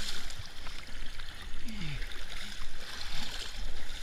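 Muddy water splashing and sloshing as a person wades and crawls through a mud pit, with scattered small splatters and drips.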